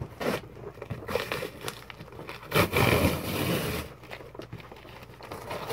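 Packing tape being ripped off a cardboard box: one long, loud tearing rip lasting about a second, about halfway through, amid rustling and knocking of cardboard being handled.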